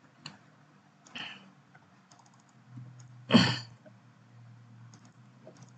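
Computer keyboard typing: a few scattered keystrokes, with one louder short burst of noise about three and a half seconds in.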